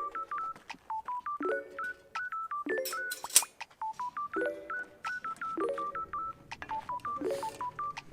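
Background music: short, bright electronic notes in a steady repeating pattern over a chord that recurs about every second.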